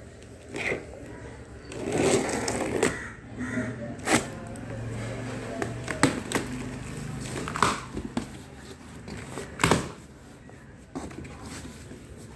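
A taped cardboard box being opened by hand: packing tape slit and pulled, cardboard flaps scraping and rustling, with a few sharp cracks along the way.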